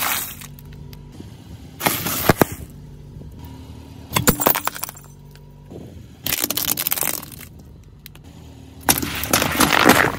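A car tyre rolling over and crushing objects one batch after another: about five separate crunching, cracking stretches of breaking plastic toys and packaged snack food, with a low steady hum between them.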